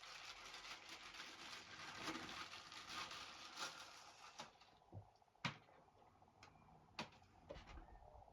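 Faint crinkly rustling of packaging as the new heater glow plug is taken out and unwrapped, then a few sharp little clicks of it being handled.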